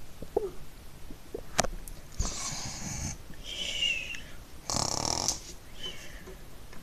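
A person making cartoon-style snoring sounds: two breathy snores with a short falling whistle between them, and a sharp click shortly before the first snore.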